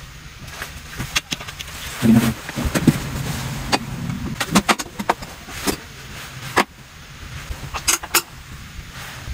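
Scattered clicks and light metal knocks of a fog-light bracket being test-fitted by hand at the front of a motorcycle.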